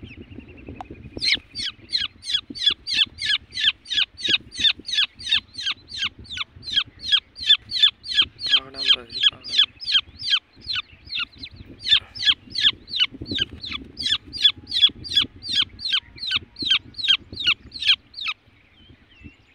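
A francolin (teetar) chick held in the hand calls again and again: loud, high, sharply falling peeps, about three a second, with one short break partway through.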